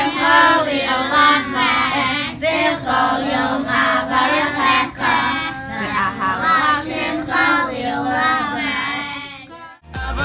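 A group of children chanting Hebrew prayers aloud together in a sing-song, reading from prayer books. The voices break off just before the end, and music starts.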